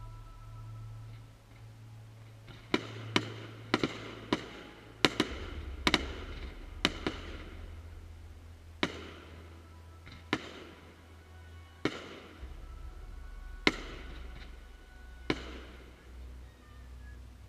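Fireworks shells bursting in the air: a string of about fifteen sharp bangs at irregular intervals, each trailing off in an echo, starting about three seconds in, with music playing underneath.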